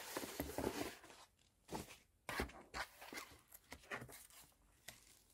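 Stiff paper postcards and cardboard album packaging rustling and sliding as they are handled and pushed aside, with irregular soft knocks.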